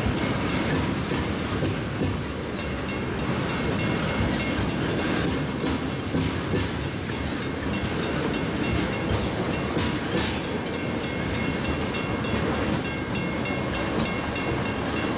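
Freight train of tank cars rolling through a grade crossing, wheels rumbling and clacking over the rails, with the crossing bell ringing steadily throughout. The last cars clear the crossing in the second half.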